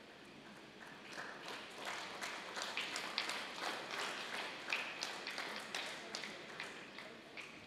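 Scattered hand clapping, starting about a second in and dying away near the end.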